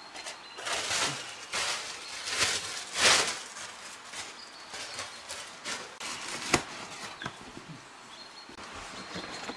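Dry leaf litter rustling and crunching as a person moves about and handles gear, with several loud swishes in the first three seconds. A single sharp knock comes about six and a half seconds in.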